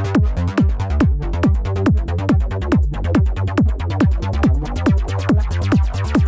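Roland SH-201 synthesizer sounds playing a trance pattern: a steady kick beat, a bit over two beats a second, under a pulsing sequenced bass line.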